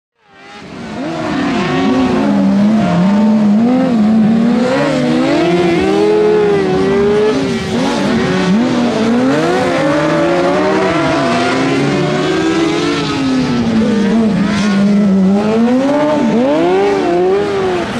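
Several racing buggy engines running hard at high revs, fading in over the first second or so. Their overlapping pitches climb and drop again and again with gear changes and throttle lifts.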